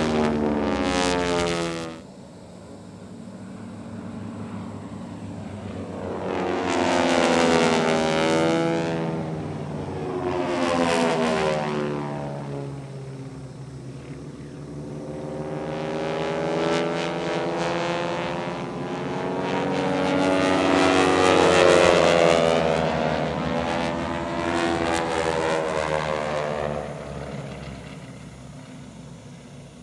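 A formation of North American T-6 Texans, their radial engines and propellers running hard, swelling and fading over several passes. The engine pitch bends down as each pass goes by, loudest about two-thirds of the way in.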